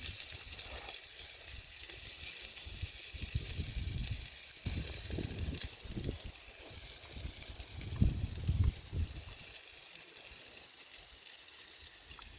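Meat sizzling on a hot grill with a steady hiss, with irregular low thumps and a sharper knock about eight seconds in from handling and eating close to the microphone.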